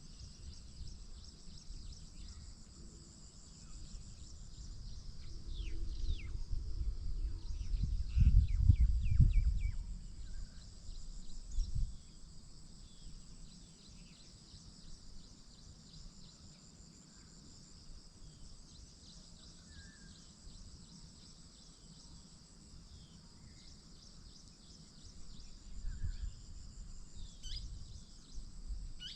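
Outdoor nature ambience: insects trill steadily and high-pitched throughout, while birds give scattered short chirps, a cluster of them about a quarter of the way in and one more near the end. A low rumble swells up a few times and is loudest about a third of the way in.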